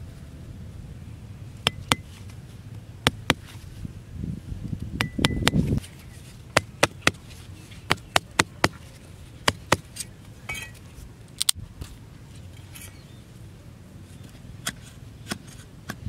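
Steel cleaver blade chopping and striking thin wooden sticks: about twenty sharp knocks in irregular runs. There is a low rumbling noise about four to six seconds in.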